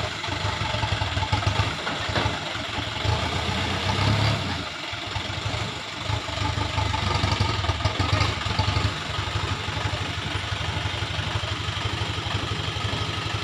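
Diesel engine of a Toyota Dyna 130HT dump truck running steadily, its tipper body raised to unload.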